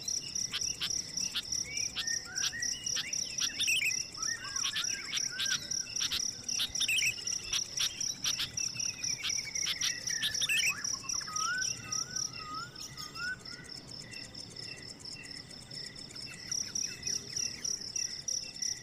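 Insects, crickets or similar, chirping in a steady, rapid high trill, with birds calling over it: varied chirps and sweeping calls, then a short run of repeated notes. The insect trill stops for a few seconds past the middle and then starts again.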